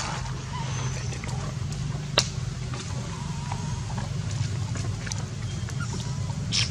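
Faint, thin whimpers from a baby macaque over a steady low hum, with one sharp click about two seconds in and a shrill squeak starting near the end.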